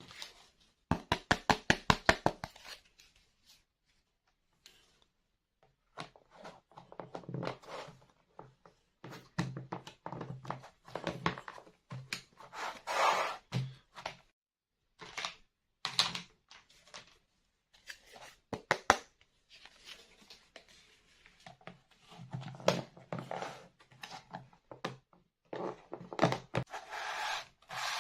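Hands unpacking and handling plastic toy pieces and packaging: a quick run of sharp clicks about a second in, then irregular rustling, tearing and light knocks.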